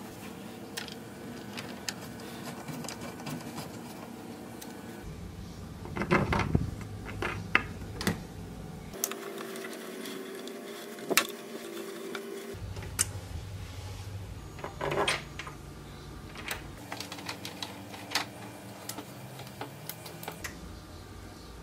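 Irregular clicks and light knocks of hands working metal bolts and hardware on a white pinewood crib frame during assembly, over a low room hum.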